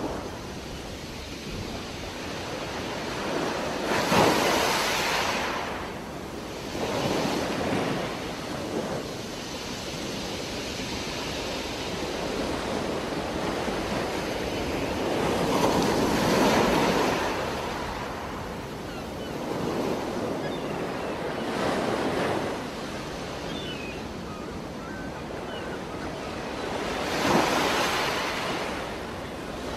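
Underwater sound of a scuba diver breathing: a rush of exhaled air bubbles from the regulator every few seconds, five times, over a steady hiss.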